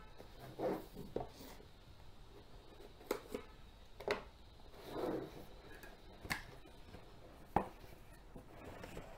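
Hands handling and turning a cardboard retail box: scattered sharp taps and knocks of fingers and the box against the cardboard, with softer brushing and rubbing between them.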